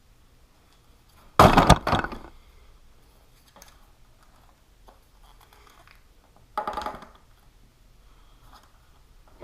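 Hard parts or tools knocked and clattered on a work surface while handled: a loud rattling cluster of knocks about a second and a half in, and a shorter one near the end.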